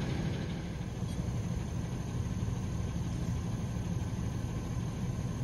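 Truck engine idling steadily, a low even hum with no change in speed.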